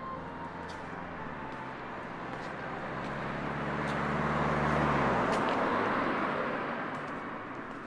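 A motor vehicle driving past. Engine and road noise build to a peak about five seconds in, the engine tone drops in pitch as it goes by, and then the sound fades away.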